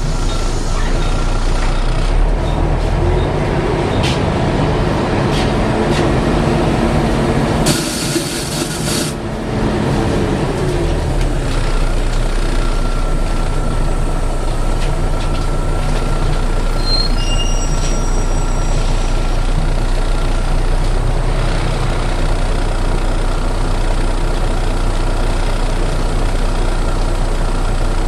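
Volvo B7TL double-decker bus engine running under way, heard from inside the bus. About eight seconds in there is a loud hiss of air lasting about a second and a half, typical of the air brakes or suspension venting, and the engine note then falls away.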